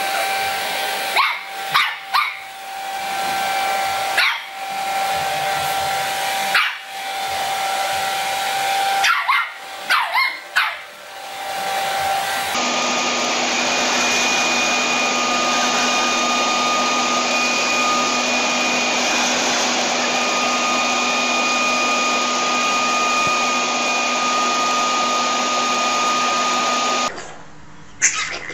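A hair dryer blowing steadily while a puppy barks and yaps at it several times. About twelve seconds in, this gives way to a leaf blower running steadily, which cuts off near the end.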